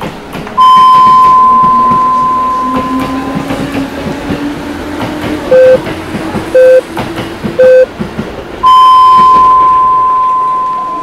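Electronic beep tones: a long, steady, high beep that slowly fades, then three short, lower beeps a second apart and a second long high beep near the end. Under them a low hum slowly rises in pitch over a noisy background.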